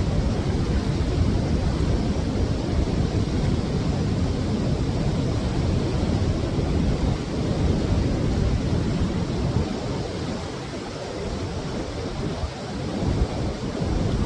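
Steady rushing noise of a waterfall, easing slightly about ten seconds in.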